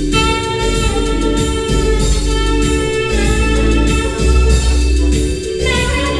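Live music: a tenor saxophone playing long held notes, moving to a new note near the end, over a bass plucked steadily in the low range.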